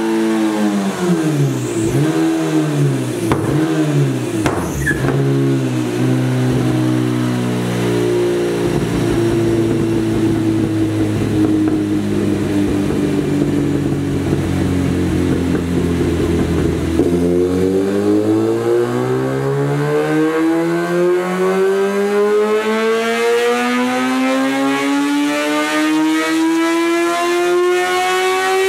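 Kawasaki Z750 inline-four with an SC-Project racing exhaust running on a dyno. It first winds down from high revs with a few quick blips, then runs steadily at low revs. About two-thirds of the way through, a long full-throttle dyno pull starts, the pitch rising steadily for about eleven seconds before the throttle is shut at the very end.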